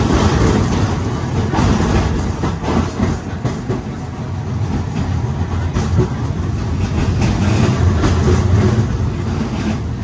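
Running noise heard from inside a moving TECO Line streetcar: a steady low rumble of steel wheels on rails, with scattered knocks and rattles.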